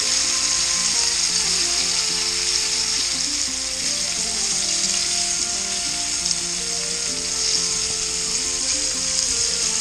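Egg-and-flour-coated grouse breasts frying in shallow oil in a pan, a steady sizzle.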